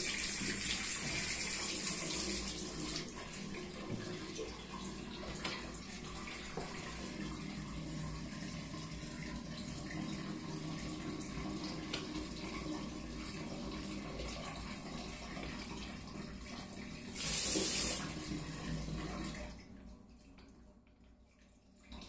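Water spraying hard from an opened low-level supply valve beside a toilet, a steady rushing hiss, as the supply line is flushed to clear an air lock. It swells briefly near the end, then dies away as the valve is closed.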